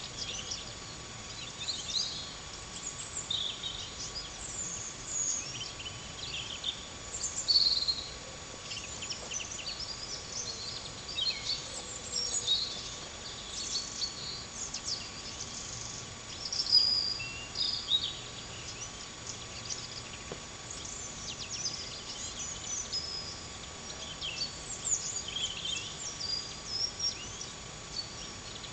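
Small woodland birds calling: many short, high chirps and brief trills, scattered and overlapping, over a steady faint background hiss.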